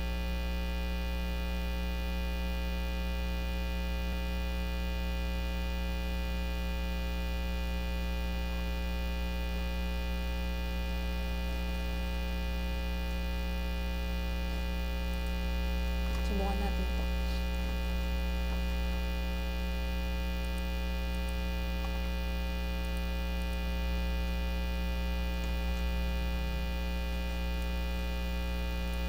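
Steady electrical mains hum, a low drone with many overtones that does not change.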